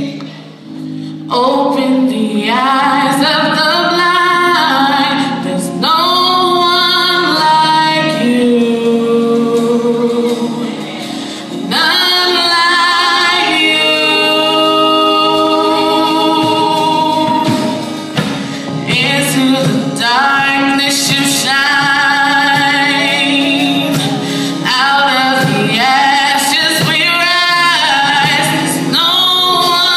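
Gospel singing, mainly a woman's voice, with long wavering held notes over sustained accompaniment.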